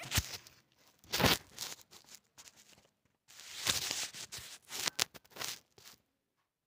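Handling noise of a phone being moved and repositioned while it records: bursts of rustling and scraping with a few sharp knocks against the microphone, stopping shortly before the end as the phone comes to rest.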